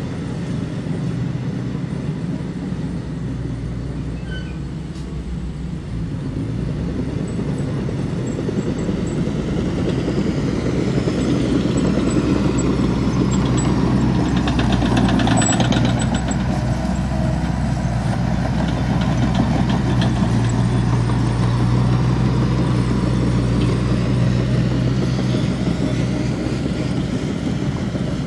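Heavy earthmoving machine's diesel engine running steadily. It grows louder several seconds in as it works harder or comes closer, then eases slightly near the end, with a few faint metallic clinks.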